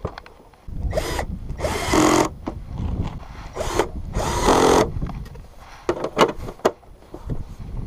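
A Yamaha Mint scooter's small two-stroke engine catches just under a second in and runs, revved in several short bursts.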